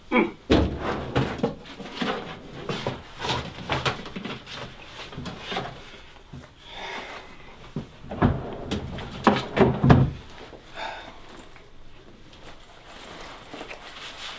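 Objects being handled and rummaged through in an office cabinet and storage tote: a string of knocks, clunks and rattles. They come in two busy spells, one in the first few seconds and another about two-thirds of the way through, with quieter handling noise between.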